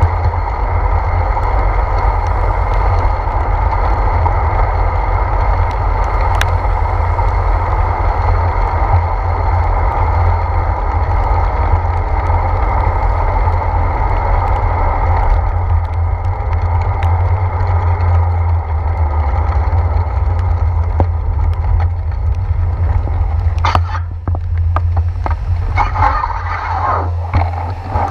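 Wind buffeting and tyre noise on wet pavement heard from a handlebar-mounted camera on a moving bicycle: a steady low rumble with a hiss over it. About four seconds from the end it eases as the bike slows, with a few clicks.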